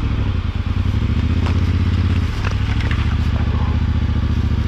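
Yamaha Ténéré 700 World Raid's parallel-twin engine running steadily at low revs while the bike moves slowly, with a brief dip in engine sound a little over two seconds in.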